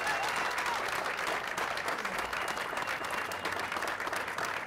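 A crowd applauding, many hands clapping steadily.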